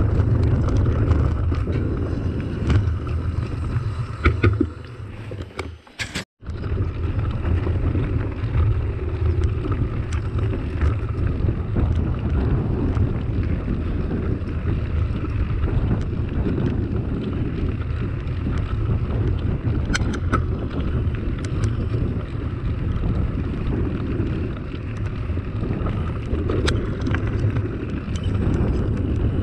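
Wind rumbling on the microphone of a camera on a moving mountain bike, with the tyres rolling over a dry dirt track and occasional small clicks and rattles. The sound cuts out briefly about six seconds in.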